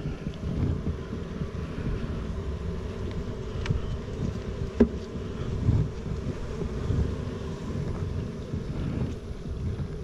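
Honeybees humming around an open hive while frames of comb are handled, with low wind rumble on the microphone and a sharp click about halfway through.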